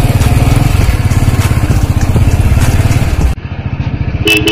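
Royal Enfield motorcycle's single-cylinder engine running under way with a steady, fast beat of exhaust pulses. About three seconds in the sound cuts abruptly to a quieter run of the engine, and a short beep sounds near the end.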